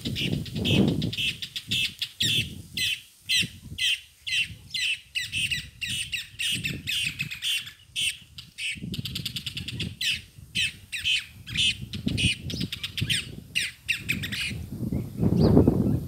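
Birds squawking in rapid, harsh, repeated calls, several a second, with a low gusty rumble that is loudest near the start and near the end.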